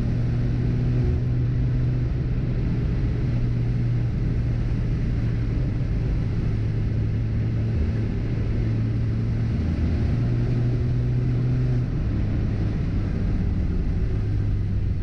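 Ford Fiesta ST engine and road noise while driving at a steady, light throttle: a steady low drone that dips and shifts slightly about ten and twelve seconds in. The engine misfires under full throttle, so it is being held back.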